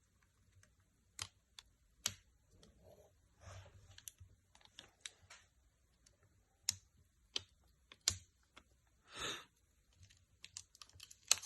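Sparse small clicks and taps with light rustling, from hands working on an iPhone XR's frame and its adhesive screen seal; a short, louder rustle about nine seconds in.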